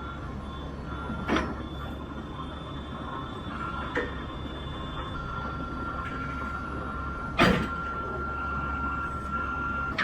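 Farm tractor running with a steady low hum, with three sharp knocks, about a second, four seconds and seven and a half seconds in; the last is the loudest.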